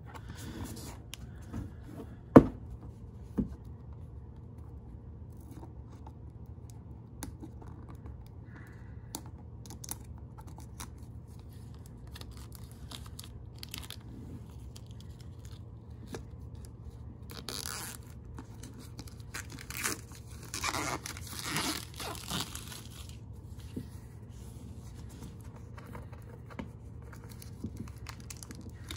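Clear plastic shrink-wrap being picked at, torn and peeled off a cardboard box, crinkling in scattered bursts that grow denser in the last third. A single sharp tap a couple of seconds in is the loudest sound, over a steady low hum.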